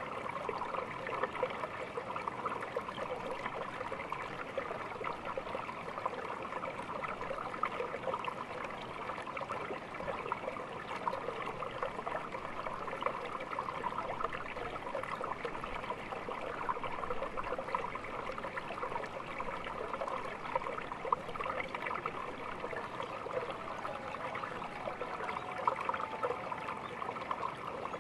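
Small stream babbling and trickling steadily, its water splashing and gurgling over stones.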